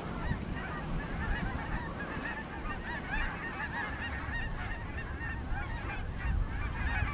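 A large flock of snow geese calling as it circles overhead: a dense, continuous chorus of many short, overlapping honks.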